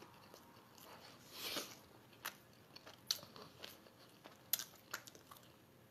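Faint chewing of a mouthful of fried chicken sandwich, with scattered small crunchy clicks and a soft swell of chewing noise about a second and a half in.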